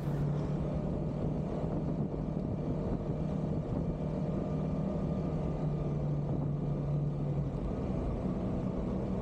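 Motor vehicle engine running at a steady speed, with a constant low hum over road and wind rumble.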